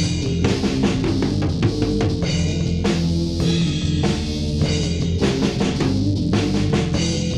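Instrumental passage of a hard rock song: a steady drum-kit beat with kick drum and snare over sustained bass and guitar.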